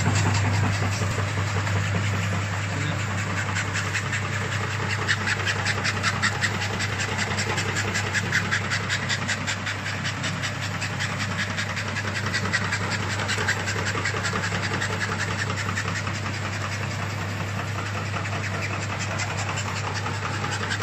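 Stainless-steel dried-fruit dicing machine running, with a steady motor hum under a rapid, even clatter of its cutting blades as it dices dried red date (jujube) slices.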